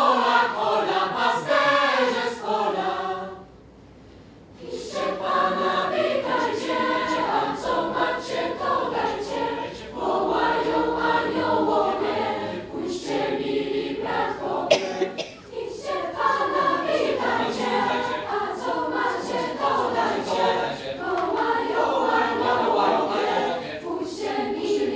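Mixed youth choir singing a Christmas carol, breaking off for a short pause about four seconds in before the voices come back in. There is one sharp click about midway.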